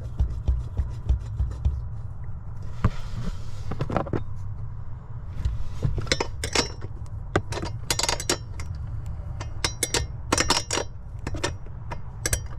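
Metal clicking and clinking of a wrench tightening the nut that holds a dead pedal bracket in a Jeep footwell: quick even ticks at first, a short scrape, then scattered sharp metallic clinks. A steady low hum runs underneath.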